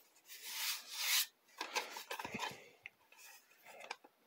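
Hands rubbing and sliding over a black metal drill-bit index case, scraping loudest in the first second, followed by a few light clicks of the metal case as it is handled.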